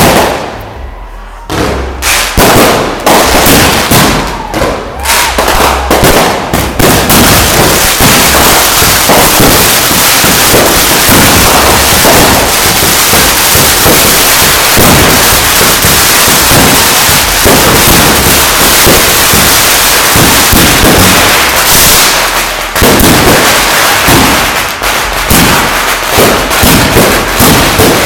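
Loud barrage of fireworks going off close by. A few separate bangs come first, then from about seven seconds in a continuous crackle of overlapping explosions, easing briefly about three-quarters of the way through.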